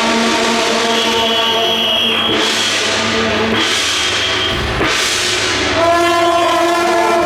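Loud procession music with drums under sustained, steady wind-instrument tones. About six seconds in, a louder steady horn-like tone sets in.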